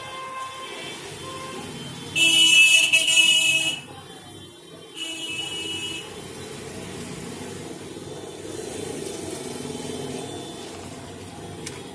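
Vehicle horn honking from street traffic: one loud blast lasting about a second and a half, then a shorter, weaker honk a couple of seconds later, over a steady background of traffic noise.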